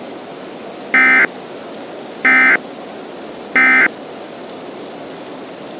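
Three short bursts of EAS digital data tones, the SAME end-of-message code that closes a weather radio alert, sent about 1.3 seconds apart over a steady hiss.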